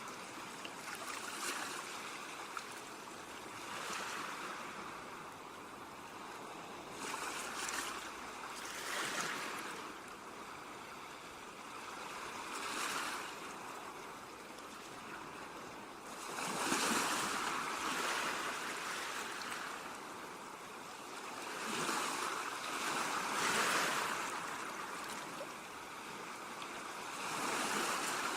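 Ocean waves breaking against shoreline rocks: a steady wash of surf that swells and falls back every few seconds as each wave comes in, the biggest surges coming in the second half.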